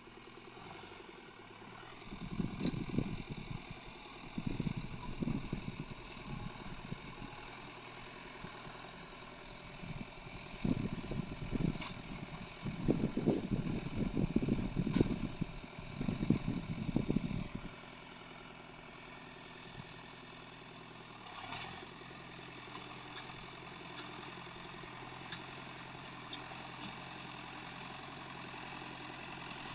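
An engine running steadily, with several louder, rougher surges in the first half and steadier running after that.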